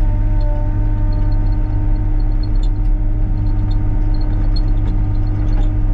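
Excavator's diesel engine running steadily, a continuous low rumble with a steady whine held over it and faint scattered ticks.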